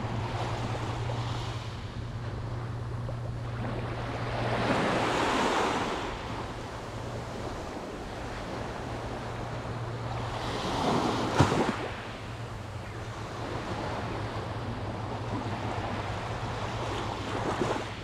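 Small sea waves breaking and washing up a sandy beach, swelling twice, about five seconds in and again about eleven seconds in, over a steady low hum.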